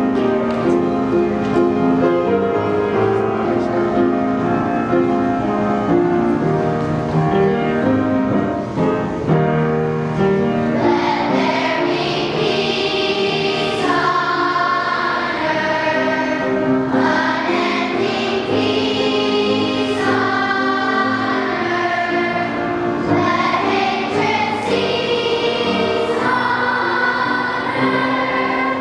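Elementary school children's choir singing a song with instrumental accompaniment; after a mostly instrumental opening, the voices come in more strongly about eleven seconds in.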